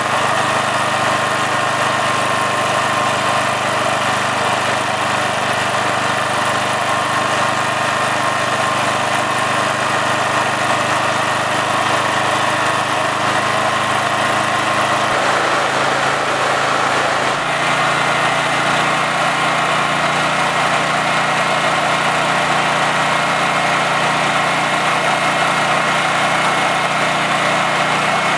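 Honda GX390 single-cylinder generator engine running steadily with no load. Its pitch steps up twice, about halfway through and again a couple of seconds later, as the governor speed screw is turned in to raise it from a too-slow speed of about 3100 RPM toward the 3600 RPM the generator needs.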